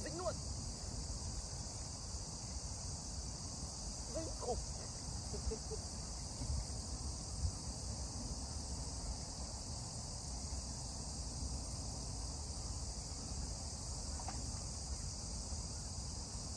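Steady, unbroken high-pitched chorus of insects in the grass, with a low rumble underneath.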